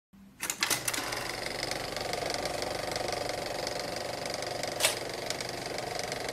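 Film projector running: a rapid, steady mechanical clatter that starts about half a second in, with a sharper click near the five-second mark.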